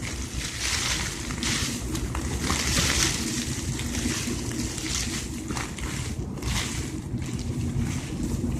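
Strong wind howling and gusting around a tent, swelling and easing every second or two, with a steady low rumble of wind on the microphone.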